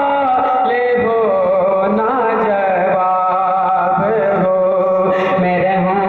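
A solo male voice sings a devotional Islamic hymn (naat) into a handheld microphone, in long held, slowly wavering melodic lines.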